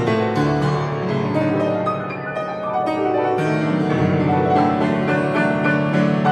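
Grand piano played solo: quick runs of notes in both hands over ringing chords.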